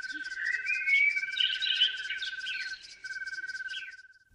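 Nature ambience: insects chirping in a fast, regular pulse with birds calling over them. The sound fades and stops abruptly near the end.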